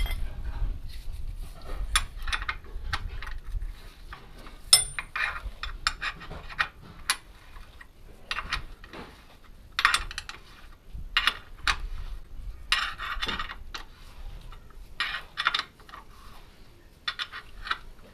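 Metal hand tools clinking and rattling in short irregular bursts as the oil filler plug is refitted and tightened on a Land Rover Discovery axle.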